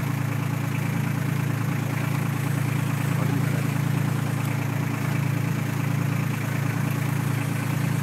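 Boat engine running steadily, a constant low hum with an even hiss over it.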